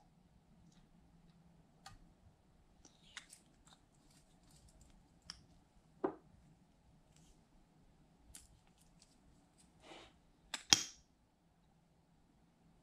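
Scattered light clicks and taps of makeup tubes, caps and an applicator brush against glass baking dishes. The loudest is a sharp double click about ten and a half seconds in.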